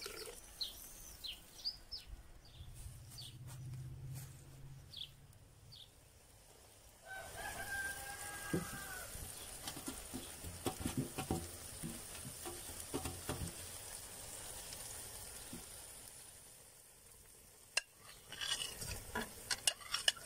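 Food sizzling in a cast-iron kazan as shredded cabbage is tipped in from a tray, with scattered knocks and scrapes, and a denser run of clicks near the end as chicken pieces slide in. A rooster crows about seven seconds in, and small birds chirp in the first few seconds.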